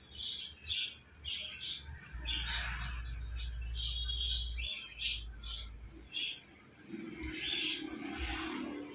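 Small birds chirping in short, repeated calls. A sharp click comes about seven seconds in, as the plastic strapping on a cardboard box is cut with scissors.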